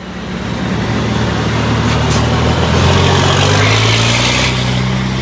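Diesel race trucks running at low revs as they move past, with the engine note rising slightly a little past halfway. A short burst of air hiss comes near the end.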